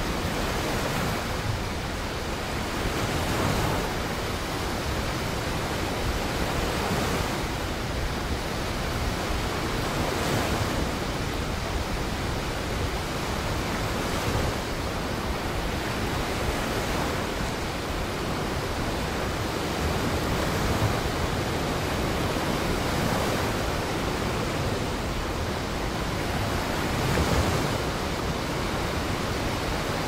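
Heavy ocean surf: a steady rushing wash of big waves breaking, swelling a little every few seconds.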